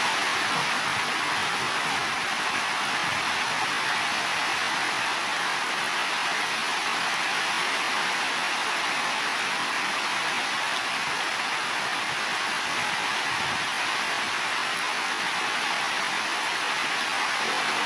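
Heavy rain falling steadily on building roofs, an even, unbroken hiss.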